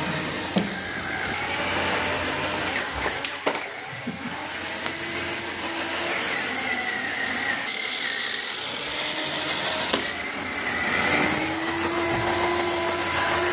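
Small DC BO gear motor of a cardboard toy truck running with a steady whir, driving its plastic wheels on a tiled floor. A few sharp clicks come as the toy is handled.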